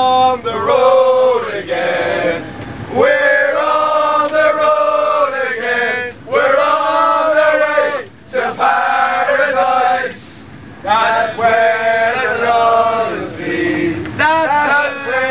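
A group of Irish football fans singing a chant together inside a crowded tram, in loud phrases of two to three seconds broken by short pauses.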